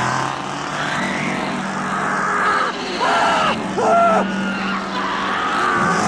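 Chainsaw running loud and revving. About three and four seconds in, a woman screams twice over it.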